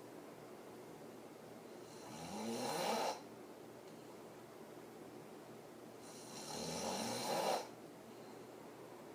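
A woman snoring very hard through her open mouth while sleeping on her back. Two long snores, about four seconds apart, each swell louder over a second or so and then cut off sharply.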